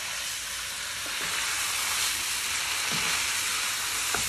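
Sauced noodles, shrimp and vegetables sizzling steadily in a hot wok as they are tossed with a wooden spatula, with a few light knocks of the utensils on the pan.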